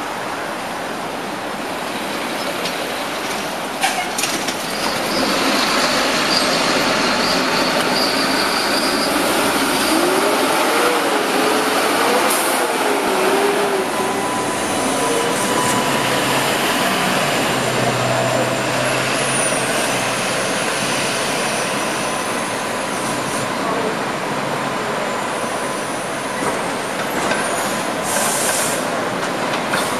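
Steady city street noise of passing streetcars and traffic. A high, thin squeal holds for a few seconds near the start, and a steady whine runs through the second half, with a few sharp clicks.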